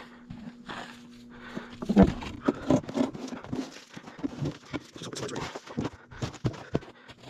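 Handling and footstep noises: irregular scuffs, rustles and knocks, with a sharp knock about two seconds in.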